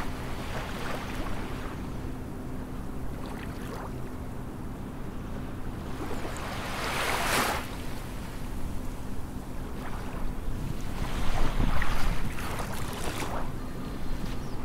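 Wind buffeting the microphone: a steady low rumble that gusts louder about seven seconds in and again around eleven to thirteen seconds, over a faint steady hum.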